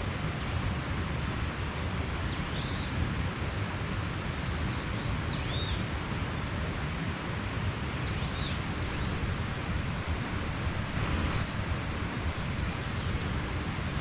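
Mountain stream rushing steadily, with a small bird giving short, high, repeated chirps over the water.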